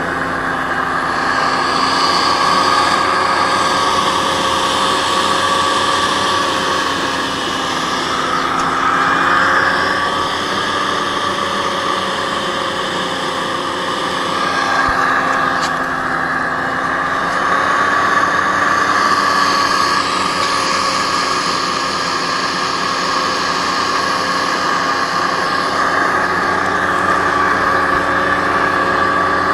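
Aerocruiser SA-1100 hovercraft running steadily under way across open water, its engine note drifting slightly up and down over a continuous hiss.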